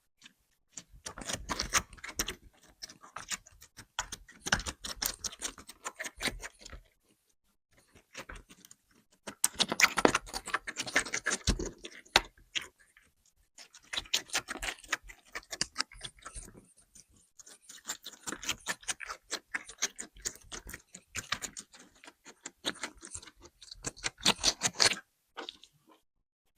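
Rapid light clicking and tapping, in bursts of a few seconds with short pauses between them.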